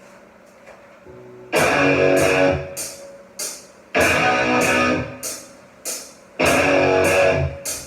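Rock song intro on distorted electric guitar. After a quiet start, three loud strummed chords are struck about every two and a half seconds and each one rings out, with short choppy strums between them.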